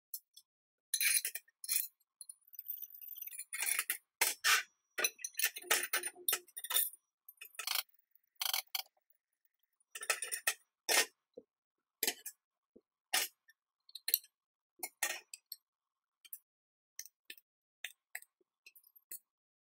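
Steel bolts, tube bushings and swingarm arms being handled and set down on a steel workbench: a string of sharp metal clinks, knocks and scrapes with short gaps between them, busiest in the first half.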